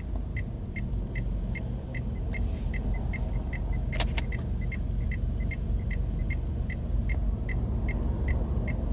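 Dacia Duster's indicator ticking steadily and evenly over the low rumble of the car's cabin, with one sharp click about four seconds in.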